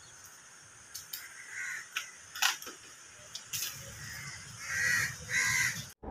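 Crows cawing: a few short harsh calls, the loudest two close together near the end, with scattered light clicks and knocks in between.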